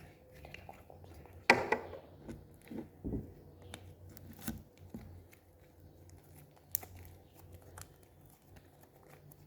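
Slime being stretched, squeezed and kneaded by hand, giving soft sticky pops and crackles, the loudest about a second and a half in.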